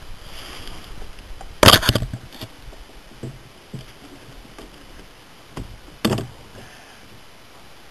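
Knocks and thumps of a camera being handled and set down on a kayak's bow hatch: one loud knock about two seconds in, then several lighter ones.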